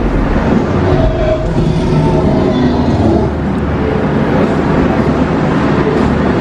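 A loud, steady low rumble with no clear beat, from the sound system of an animatronic Tyrannosaurus rex display.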